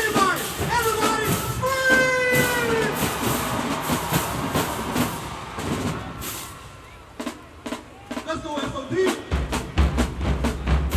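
Marching band playing: brass with falling slides over drums. It drops to a quieter stretch of sharp drum taps, then heavy bass drums and the full band come back in near the end.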